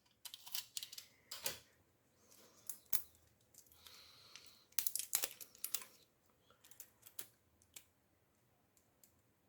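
Faint, irregular clicks and taps in small clusters from AAA batteries and their packaging being handled.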